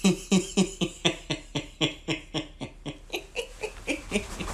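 A man laughing hard in a long, steady run of short 'ha' pulses, about four a second, each dipping in pitch, growing fainter toward the end.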